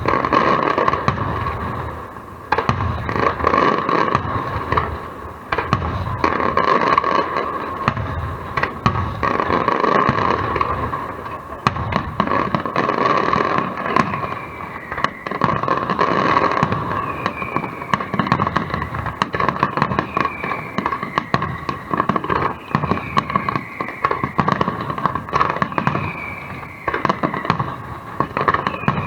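Fireworks display: a dense, continuous run of bangs and crackling bursts, with short falling whistles repeating about every second and a half in the second half.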